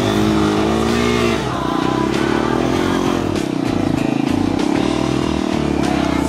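Dirt bike's engine running at low revs as the bike moves along, its pitch rising and wavering in the first second or so, then dropping back to a steady low run, with occasional light rattles.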